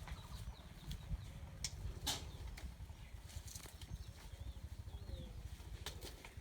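Outdoor ambience of low wind rumble on the microphone, with a few sharp clicks and faint bird chirps.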